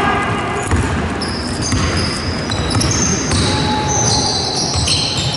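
Basketball game on a wooden sports-hall floor: the ball bouncing as it is dribbled, with footfalls and many short, high-pitched squeaks of trainers on the boards.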